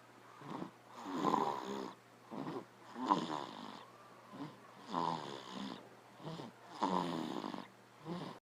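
A young child snoring in sleep: a loud rattling snore about every two seconds, with quieter breathing sounds in between.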